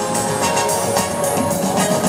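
Live band playing, with drum kit, keyboards and a horn section of saxophone, trumpets and trombone, recorded from the arena audience.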